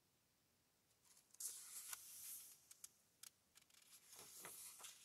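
Faint rustle of a paperback picture book's paper pages being handled and turned by hand, in two short bouts with a few soft clicks.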